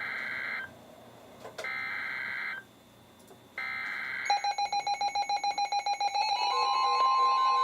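Three bursts of the EAS/SAME digital header, each a screechy warbling data buzz about a second long with roughly a second between them, announcing a flash flood warning on NOAA Weather Radio. About four seconds in, rapid alert beeping takes over, and it is joined a couple of seconds later by the steady 1050 Hz warning alarm tone.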